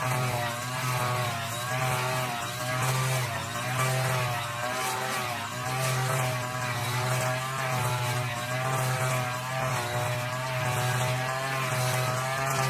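Brush cutter engine running at high speed, its pitch wavering up and down as the load changes while it cuts thick, tall grass.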